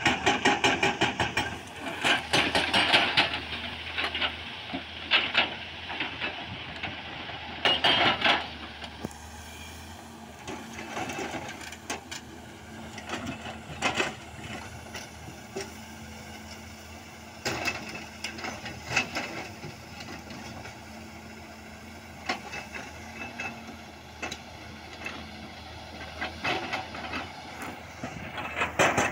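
An excavator-mounted hydraulic rock breaker hammering rock in bursts of rapid blows, loudest in the first few seconds. The excavator's diesel engine runs steadily between the bursts.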